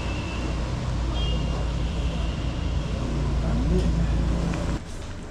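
A vehicle engine's low, steady rumble, with a brief rise in pitch about three and a half seconds in, cutting off abruptly near the end.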